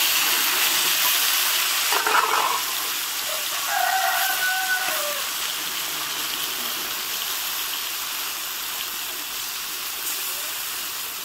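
Food sizzling steadily in hot oil in a black kadai (wok) set down off the fire, the sizzle slowly fading as the overheated pan cools. A short pitched animal call comes in about four seconds in.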